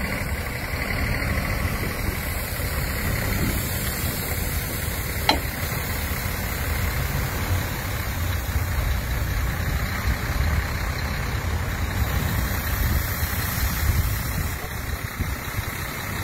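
Lorry engine idling steadily, a continuous low rumble, with one short sharp click about five seconds in.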